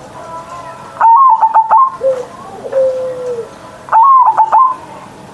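Zebra dove (perkutut) cooing: two loud song phrases of quick staccato notes, one about a second in and one near the end, with a lower drawn-out coo between them.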